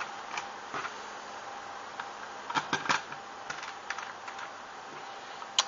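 Small bolts and a gasketed cover plate on a waterproof quadcopter being handled and fitted: scattered light clicks and taps, with a sharper click near the end, over a faint steady hum.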